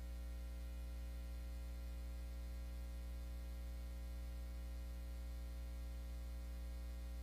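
Steady low electrical hum with a buzz of many overtones and a faint hiss, unchanging throughout.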